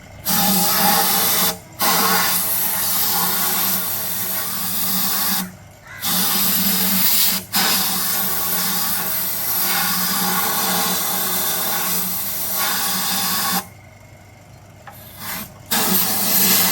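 Compressed air hissing from a workshop blow gun in long blasts of several seconds, cut by several brief pauses and a longer pause about fourteen seconds in.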